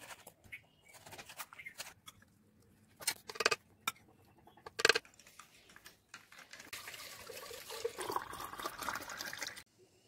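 Liquid being stirred and poured, the sound of watermelon lassi being mixed: a few sharp knocks between about three and five seconds in, then a stretch of sloshing and pouring until near the end.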